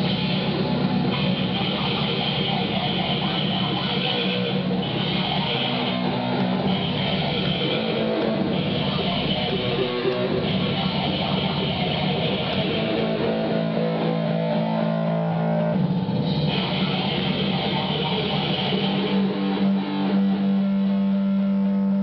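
Harsh grind-noise played live from computer music software through a distorted guitar plugin: a dense, continuous wall of distorted guitar-like noise with low droning notes that shift in pitch, and a harsh high hiss that cuts in and out every second or two.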